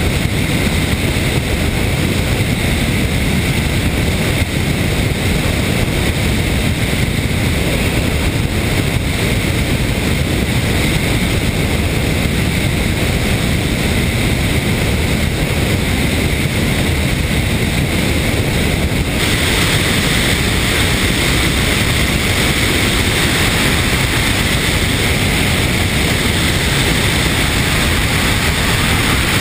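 Steady, loud rush of airflow over a wing-mounted camera on a Van's RV-8A light aircraft in flight. About two-thirds of the way in, the rush turns suddenly hissier and stays that way.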